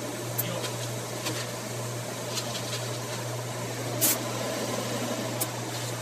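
Jackson commercial dishwasher running a cycle: a steady low hum under an even hiss, with a few brief sharp clicks, the loudest about four seconds in.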